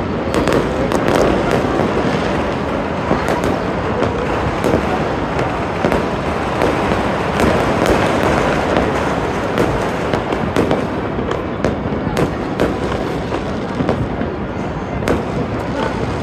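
Many fireworks and firecrackers going off at once, a dense continuous crackling din with frequent sharp bangs throughout.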